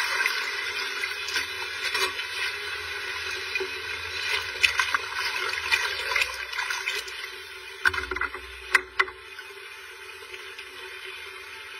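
Liquid poured from a plastic container into a ceramic dish, a steady splashing trickle. A few sharp clicks come about 5 and 8 seconds in, and the pouring dies down to a faint hiss after about 9 seconds.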